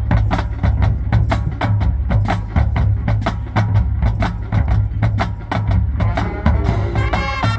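Marching band percussion playing a steady clicking rhythm, about four or five sharp hits a second, over bass drums. Sustained brass chords come in near the end.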